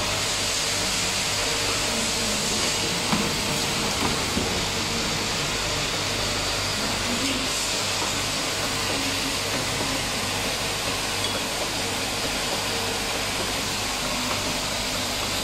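Steady machinery hum and hiss of a factory workshop, with a few light clicks a few seconds in.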